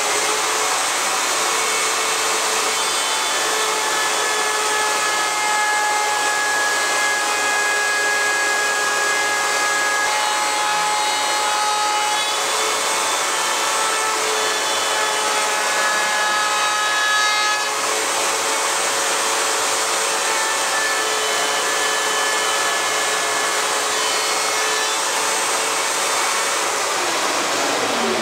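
Table-mounted router running at full speed, its cove bit cutting into the edge of a walnut board as the piece is fed around, with a shop vacuum running alongside; the router winds down near the end.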